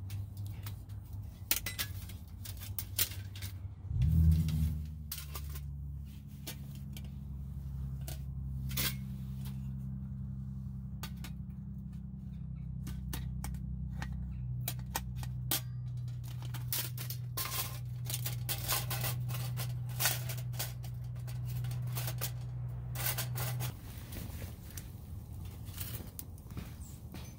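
Thin stainless-steel panels of a folding backpacking wood stove clicking and clinking as they are handled and hooked together. A low steady hum starts about four seconds in and stops shortly before the end.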